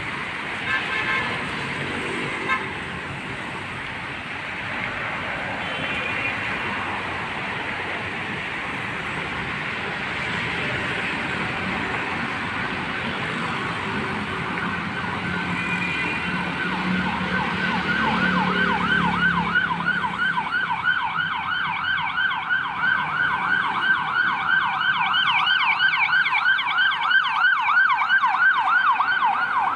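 Road traffic running past, then about two-thirds of the way through an emergency vehicle's siren comes in, in a fast yelp that rises and falls several times a second and grows louder.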